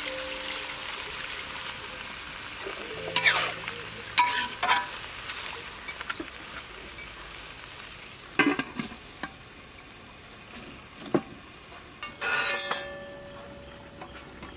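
Stir-fry sizzling in a large wok, the hiss fading over the first half, with a metal ladle knocking against the wok five times. Near the end comes a longer ringing metal clatter as the aluminium domed lid is set on the wok.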